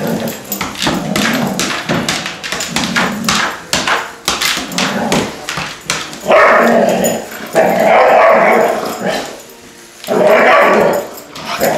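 Doberman barking and whining at a small toy bunny, with quick clicking sounds in the first half and three long, loud bouts of barking in the second half.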